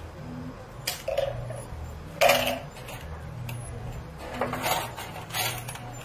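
Metal peso coins clinking and clattering in bursts as they are scooped out of a coin-pusher machine's payout tray, the loudest clatter a little past two seconds in.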